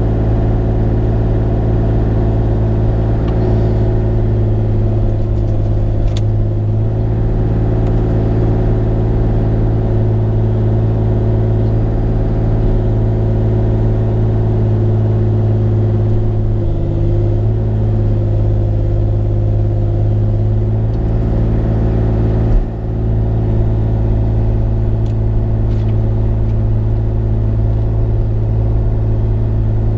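Bobcat E35i mini excavator's diesel engine running steadily under work, its pitch dipping briefly about halfway through, with a sharp knock about three-quarters of the way in.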